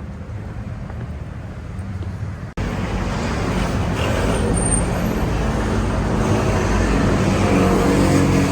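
City street traffic: a steady hum and rumble of passing cars. It breaks off abruptly a little over two seconds in and comes back louder.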